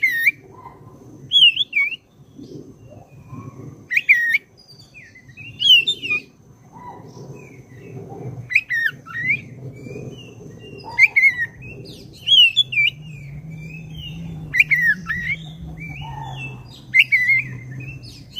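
Black-breasted oriental magpie-robin (kacer dada hitam) singing: loud, varied whistled phrases that slide up and down in pitch, repeated every one to two seconds, with thin high sweeping notes among them.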